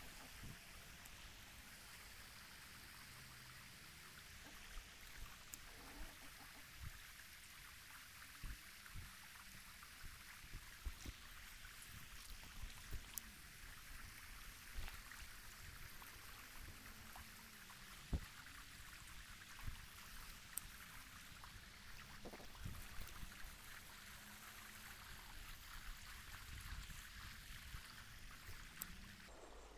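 Shallow river running over stones with a steady, faint rush of water. Irregular low knocks and bumps are heard throughout.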